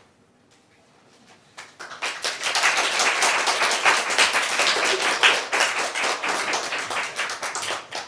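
Audience applauding, starting about a second and a half in, building quickly and dying away near the end.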